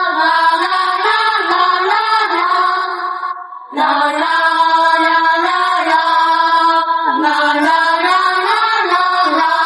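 Background music: a slow song with long held sung notes, pausing briefly about three and a half seconds in.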